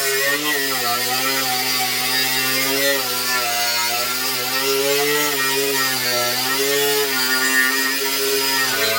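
Electric power tool motor running continuously, its pitch sagging and recovering several times as the load on it changes.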